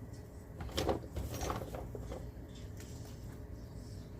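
Kitchen handling noises: a few brief clicks and rustles about a second in, over a low steady hum.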